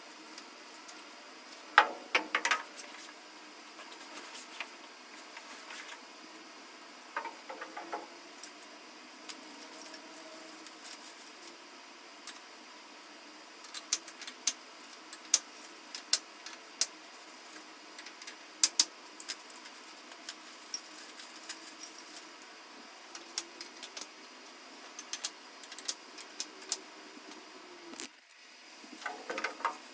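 Scattered sharp clicks and light knocks in irregular clusters, with a faint steady hiss underneath: handling noise from the aluminium frame of a folding camp cot being set up.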